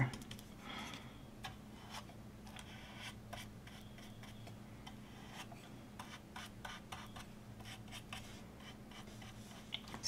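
Flat paintbrush stroking Mod Podge over decoupaged napkin pieces on a small wooden birdhouse: faint, light scratching brush strokes, over a steady low hum.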